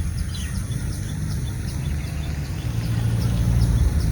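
A steady low rumble with faint, quick high chirps repeating a few times a second.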